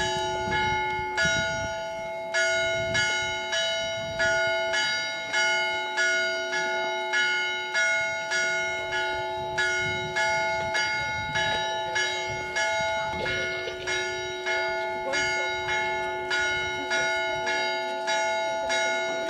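Church bells ringing a festive peal in quick, even strokes, about every two-thirds of a second. Two or three bells of different pitch alternate, each ringing on between strokes.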